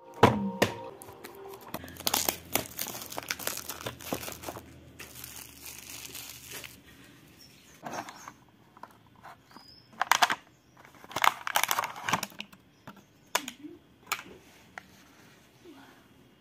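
Cardboard boxes and clear plastic packaging of i12 wireless earbuds being handled and crinkled during unboxing, in irregular bursts of rustling and crackling with quieter gaps between.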